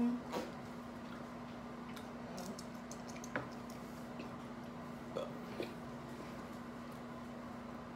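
Quiet eating at the table: a few faint, scattered clicks and smacks from seafood being peeled and eaten by hand, over a steady low hum.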